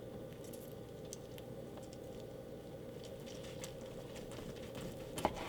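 Faint kitchen handling sounds: scattered light ticks and taps over a steady low hum, with a sharper click about five seconds in.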